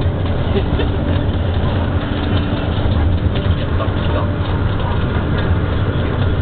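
Bus engine running steadily, a continuous low drone with no change in pitch.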